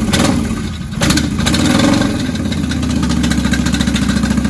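1995 Kawasaki Vulcan VN800A's V-twin engine running, rising briefly about a second in, then settling to a steady, even beat. This is the engine knock the bike is being shown for.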